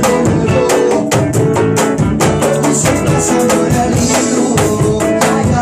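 Band music with drum kit and guitar playing a steady, upbeat rhythm.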